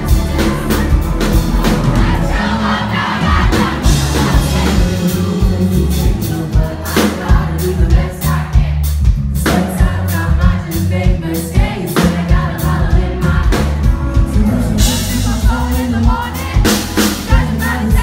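Live pop-rock band playing loudly, with a male singer on a microphone over electric guitar and drums, heavy on the bass and driven by a steady drum beat. It is heard from within the audience, with crowd noise mixed in.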